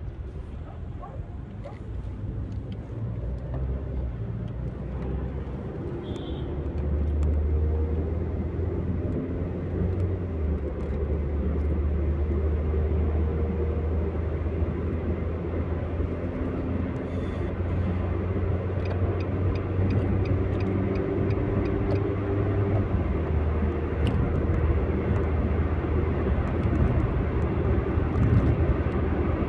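Car engine and road noise heard from inside the cabin while driving: a steady low rumble that grows louder about seven seconds in as the car picks up speed, then holds steady.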